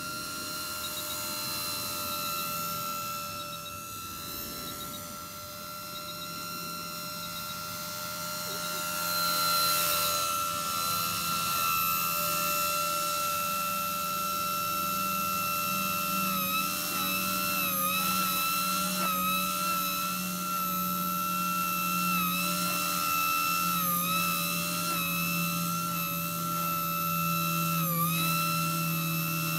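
Micro electric RC helicopter (cHP-120B) in flight: a steady high whine from its motor and gears over a lower rotor hum. It grows louder about ten seconds in, and the pitch dips briefly several times.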